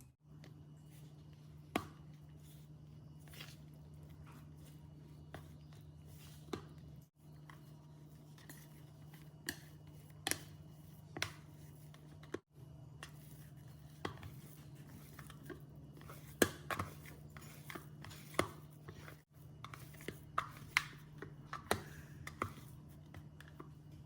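Scattered light taps and clicks of kitchen utensils and ingredients being handled during food preparation, over a steady low hum, broken by three brief dropouts.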